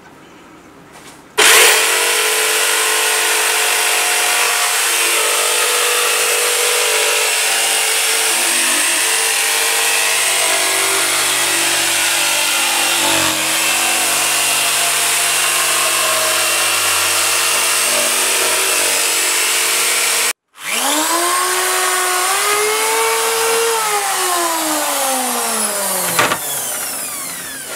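Electric jigsaw cutting a curved piece of thin wood, its motor and blade running steadily after starting about a second and a half in. It cuts out for an instant about twenty seconds in, starts again with its pitch rising and then falling, and runs down near the end.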